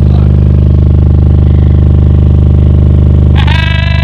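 A single 15-inch Massive Audio Hippo subwoofer in a ported box, played very loud and heard from inside the car: a steady, held deep bass note that fills the cabin. A brief high-pitched sound with overtones cuts in near the end.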